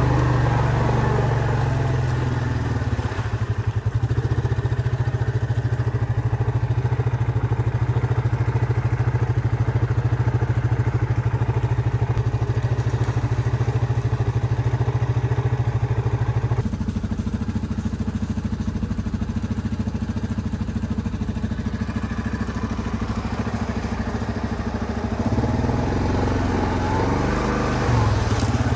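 Yamaha Grizzly 700 ATV's single-cylinder four-stroke engine running steadily as it rides. Its note drops a little just past halfway and picks up again near the end.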